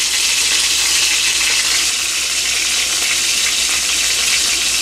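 Marinated fish pieces frying in hot oil in a pan over a low flame: a steady, dense sizzle with fine crackling.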